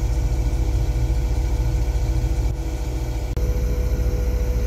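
Case IH 2188 Axial-Flow combine's engine and machinery running steadily, heard from inside the cab. About three seconds in, the sound breaks off sharply and resumes with a steady hum added while the unloading auger pours corn into a grain trailer.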